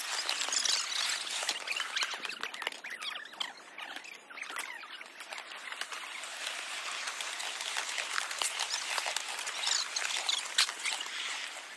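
Many small birds chirping and twittering together at once, with scattered light ticks.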